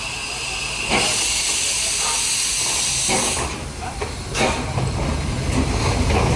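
Small steam tank locomotive hissing steam as it moves slowly on the turntable. The hiss stops about three and a half seconds in, and a low rumble with a few sharp knocks follows as the locomotive rolls.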